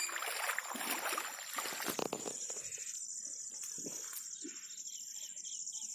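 Steady high-pitched insect buzzing, like crickets, with faint short chirps in the middle. A rustling, splashing noise fills the first two seconds.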